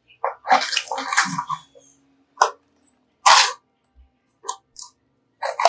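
Clear plastic blister packaging crinkling and crackling as it is handled, in irregular bursts, the loudest a little over three seconds in.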